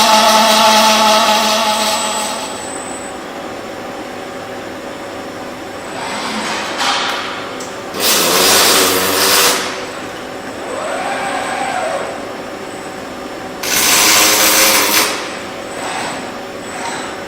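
Robotic welding cell machinery running: a steady machine drone, a motor whine that rises and falls once in the middle, and two loud noisy bursts, each about a second and a half long.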